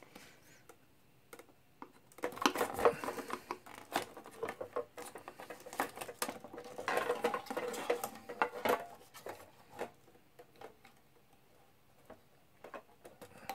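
A screwdriver tip and fingers working a small plastic wire connector out of a plastic housing: scattered clicks and scraping taps, busiest in two spells, a couple of seconds in and again about seven seconds in.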